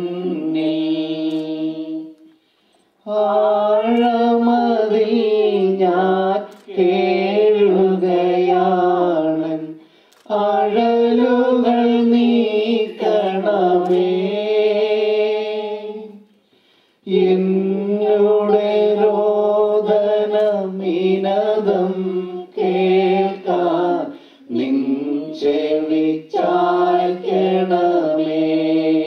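A slow Malayalam funeral hymn being sung, in long drawn-out lines broken by short pauses about 2, 10 and 16 seconds in.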